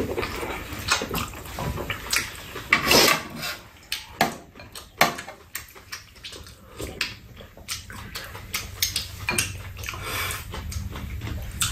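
Two people eating at close range: chewing and slurping mouth noises, with spoons and chopsticks clicking against bowls now and then.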